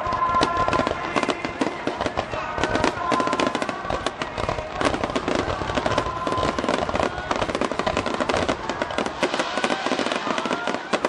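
A fireworks display in full barrage: many aerial shells and ground fountains going off together as a dense, continuous run of rapid pops and crackles.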